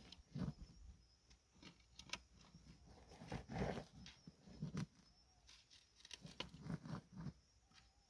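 An armadillo rooting in the dirt with its snout makes faint, irregular snuffles and the scratching of loose soil. The loudest puff comes about three and a half seconds in.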